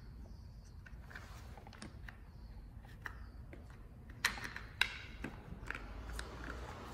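Faint clicks and knocks of parts being fitted by hand on a car turner's electric drive motor and gearbox assembly, with two sharper clicks a little after four seconds in and just before five.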